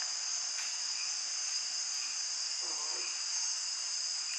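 A night insect chorus: many insects, crickets among them, keep up a steady, high-pitched shrill made of several overlapping pitches.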